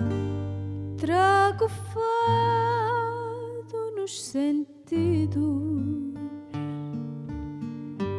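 Fado: a woman sings over a plucked string trio of Portuguese guitar, viola de fado and acoustic bass. Her voice enters about a second in, over the strings, and holds long notes that waver in pitch.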